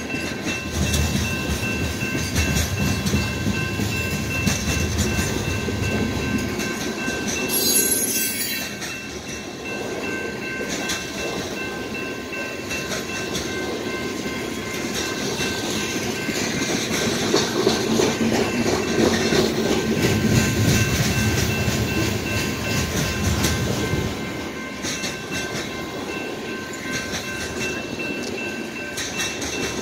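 Covered hopper cars of a grain train rolling past: a steady rumble and clatter of wheels on the rails, swelling louder a little past the middle. A thin high steady tone runs over it.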